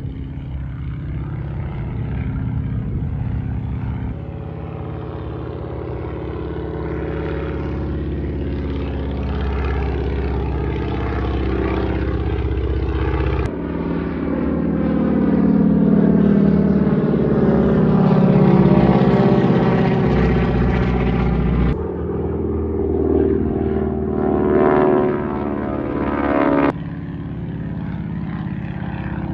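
Propeller-driven warbird aircraft droning as they fly over, loudest a little past the middle as a plane passes overhead. The engine sound changes abruptly several times.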